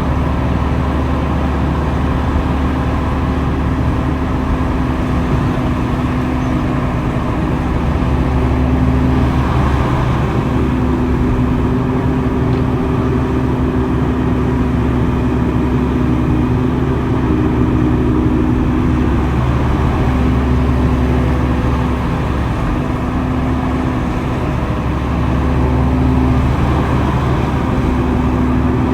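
Diesel engine of heavy earthmoving machinery running steadily under load, with its note briefly shifting a few times.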